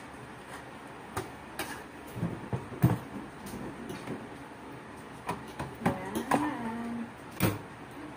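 Metal spoon and fork clinking and scraping against a bowl and plate while eating rice and fried chicken: a series of sharp, separate clinks. A short hummed voice sound comes about six seconds in.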